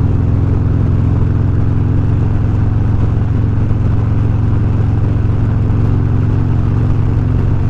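Harley-Davidson Road Glide Special's V-twin engine running at a steady, unchanging pitch while the motorcycle cruises, with road and wind noise over it.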